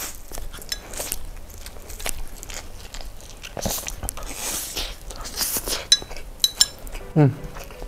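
Stir-fried instant noodles slurped off chopsticks and chewed close to a clip-on microphone: several wet slurps in the middle, then a run of lip smacks and mouth clicks, and a short hummed voice near the end.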